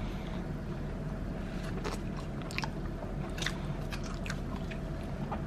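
Someone chewing food close to the microphone, with a few sharp, scattered mouth clicks over a steady low hum.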